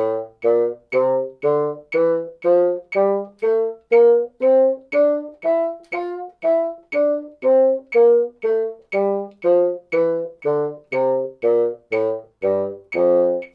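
Bassoon playing an F major scale over two octaves, about two separately tongued notes a second, climbing to the top note about halfway through and stepping back down to the bottom. A metronome ticks in time with each note.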